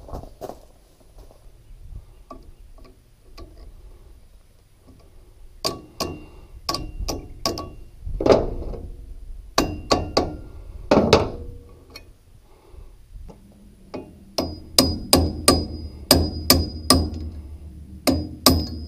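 Hammer blows on a steel drift punch held against the rod-end pin of a John Deere MX10 rotary cutter's hydraulic lift cylinder, knocking the pin out. The strikes are sharp and ring metallically, coming in two runs: one after about five seconds, and a quicker one near the end.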